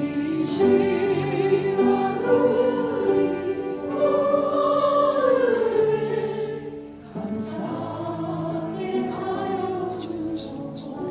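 Church choir singing a Korean hymn in harmony, with held notes and a soft accompaniment underneath, the sound dipping briefly between phrases about seven seconds in.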